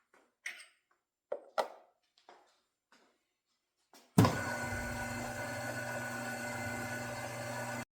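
A few light knocks and clicks of parts being handled. About four seconds in, a milling machine's spindle motor starts and runs at a steady hum with several pitched tones, then cuts off abruptly near the end.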